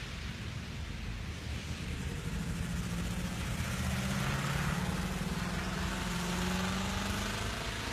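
A vehicle driving past on a rain-soaked street: engine hum and tyre hiss on the wet road swell from about two seconds in and ease off near the end.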